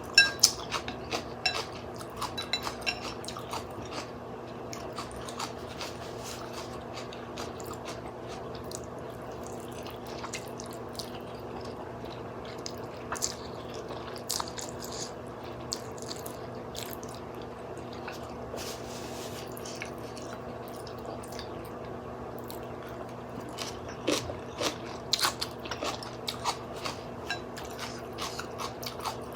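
A person chewing glass noodles and fish balls, with short sharp clicks, thickest in the first few seconds and again near the end. A steady low hum runs underneath.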